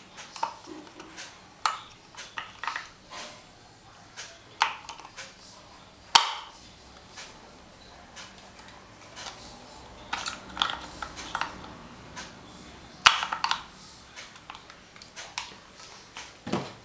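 Handling noise of a Nonsha NA-Q7 shotgun microphone and its plastic parts: irregular clicks and taps as it is switched and handled, the sharpest about six seconds in and a quick run of them around ten to thirteen seconds.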